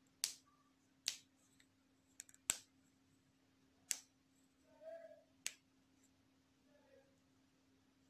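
Sharp, isolated clicks at irregular intervals, about half a dozen, over a faint steady hum.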